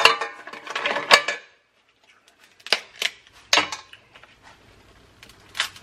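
King crab legs being shelled by hand over a stainless steel bowl, with hard shell pieces clicking and clattering against the bowl. A quick cluster of clicks comes first, then a short hush, then a few separate sharp clicks.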